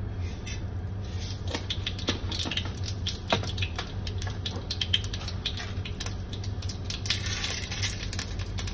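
Mustard seeds crackling and popping in hot oil in a frying pan while being tempered, with a denser sizzle near the end as urad dal is sprinkled in. A steady low hum runs underneath.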